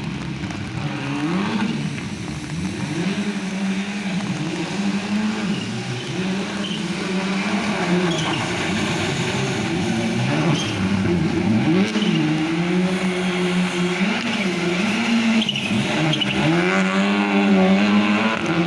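Rally car engine revving hard, its pitch repeatedly climbing and dropping as it is driven through a show stage.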